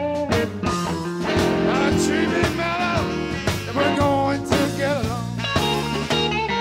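Blues band playing live: guitar lines with bent, wavering notes over upright bass and a steady beat.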